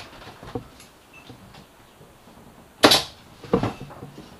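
Pneumatic 23-gauge pin nailer firing twice, two sharp shots less than a second apart about three seconds in, tacking pins into a wooden frame. A few light knocks come before them.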